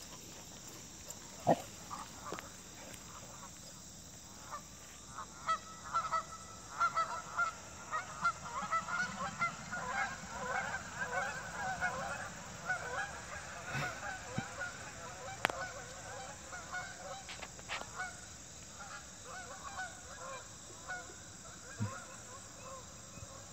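A flock of geese honking, many short overlapping calls that build up after a few seconds and thin out toward the end. One sharp thump sounds about a second and a half in.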